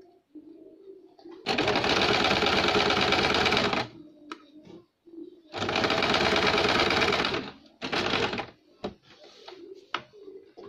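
Electric sewing machine stitching in starts and stops: two steady runs of about two seconds each, then a short burst, with fabric handling and a few sharp clicks in the pauses.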